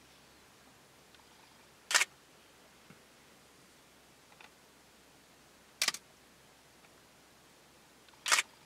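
Three sharp camera shutter clicks a few seconds apart, about two seconds in, near six seconds and near the end, over a faint steady background.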